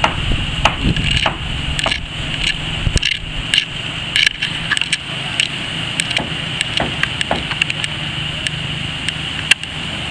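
Scattered, irregular sharp knocks of hammering on the timber of a wooden boat hull under construction, over a steady high-pitched drone. Low wind rumble on the microphone fades out about a second in.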